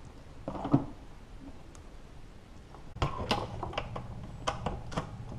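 Hand tools and plastic intake parts being handled under the hood: a single knock about half a second in, then from about three seconds a run of separate sharp clicks and knocks.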